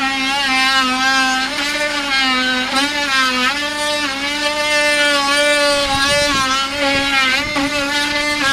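Cordless drill running continuously under load against the wooden hull planking, its motor whine wavering slightly in pitch as the bit bites, with a few faint knocks about six to seven seconds in.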